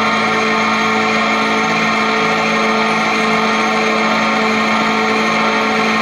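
A steady drone of many instruments together holding the notes A and E, a dense sustained chord with no rhythm or change.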